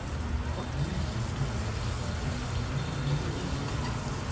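Steady outdoor background noise: a low rumble with faint, indistinct voices in the distance.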